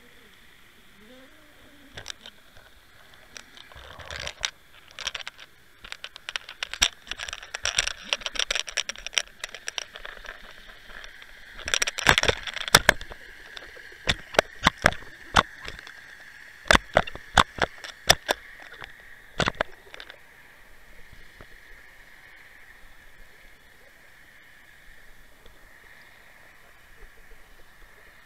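Underwater clicks and rattling taps from a bucktail fishing rig, heard through the camera riding on it, as the rig is worked over a sandy bottom. Rapid clusters of clicking come a few seconds in and again around twelve seconds, then single sharp clicks spaced about a second apart, which stop about twenty seconds in.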